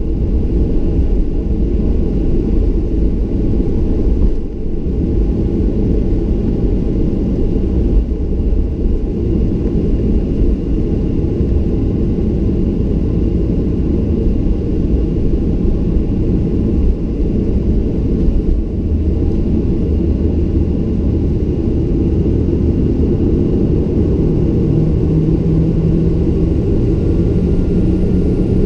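Cabin noise of a Boeing 737-800 on the ground: the CFM56 jet engines and the airframe make a steady, loud, deep rumble. Near the end a low engine tone grows stronger and edges up in pitch.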